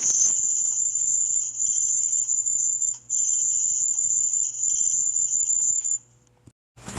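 Cricket chirping sound effect: a continuous high trill, broken briefly about three seconds in and cutting off about a second before the end.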